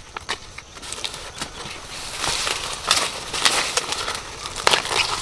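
Corn plants rustling and crackling as ears of corn are picked by hand: dry leaves and husks crinkling, broken by several sharp snaps.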